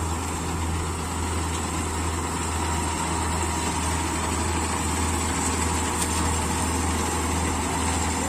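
Combine harvester's engine running steadily with a constant low hum.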